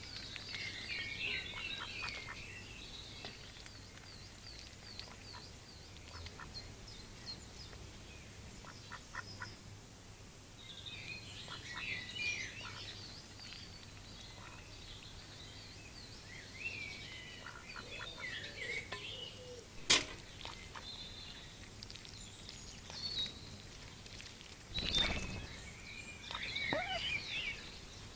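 Female mallard dabbling at a shallow water dish, her bill making short soft clicks as she drinks, while small songbirds chirp and trill. There is a sharp click about twenty seconds in and a low thump a few seconds later.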